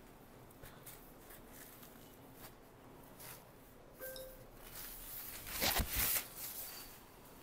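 Saree fabric rustling as a folded saree is lifted and flung open across a table, with a few light handling ticks before it and a loud swish of cloth about six seconds in.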